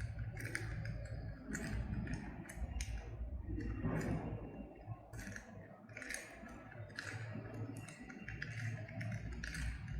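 Plastic Rubik's cube being turned by hand, its layers clicking and clacking irregularly as a move sequence is worked through.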